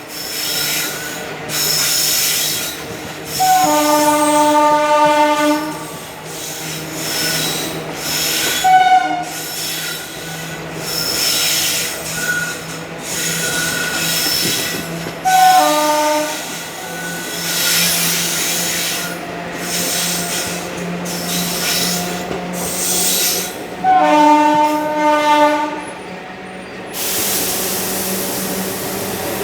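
WAG5 electric locomotive's horn sounding four times, two longer blasts and two short ones, heard from a coach behind it. Under it, the ICF coaches' wheels clatter in an even rhythm over the track; near the end the clatter gives way to an even hiss.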